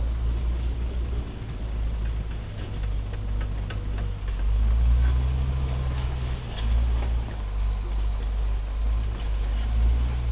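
Heavy diesel truck engine running at low revs: a deep drone that swells and eases a few times, with faint scattered clicks over it.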